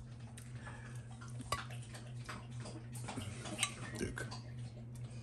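Faint, scattered small clicks and taps over a steady low hum.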